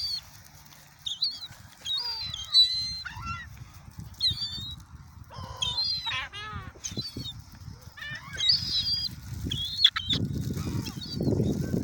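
Several gulls calling over one another with repeated high cries, some short and some drawn out. A low rushing noise builds near the end.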